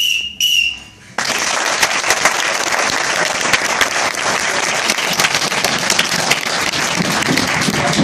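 A whistle blown in two short blasts, then a small audience applauding steadily for several seconds.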